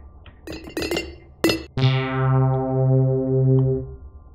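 Synthesizer keyboard sound played from Maschine drum pads: four short plucked notes, then a held chord with a wavering low note that dies away about two seconds later.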